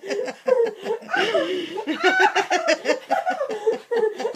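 People laughing hard, a long run of laughter in quick repeated pulses.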